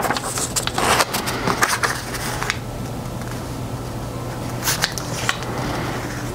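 Origami paper rustling and crinkling as a square sheet is folded in half and the crease is pressed flat by hand. The crackles come thickly in the first couple of seconds and a few more come near the end, over a steady low hum.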